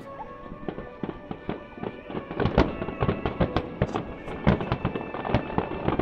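Fireworks bursting in quick succession, a rapid string of bangs that comes thicker and louder from about two and a half seconds in.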